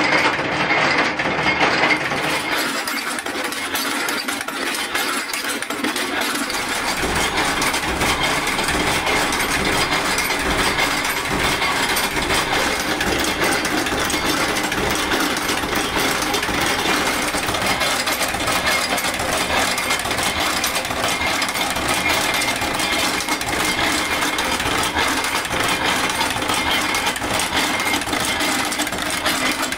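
Automatic chain-making machine running, a fast, steady metallic clatter as its mechanism forms steel wire into chain links. A low machine hum joins about six seconds in.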